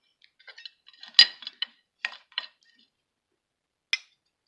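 Cooked crab shell cracking and clicking as it is pulled apart by hand, a string of short sharp clicks with the loudest crack about a second in.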